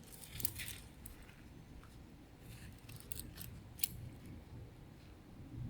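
Faint, scattered clicks and rustles from hands handling a watch box and its packaging, with one sharper click a little under four seconds in.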